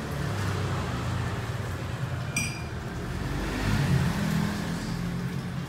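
An engine running steadily with a low hum, swelling a little about three to four seconds in. A single short metallic clink rings about two and a half seconds in.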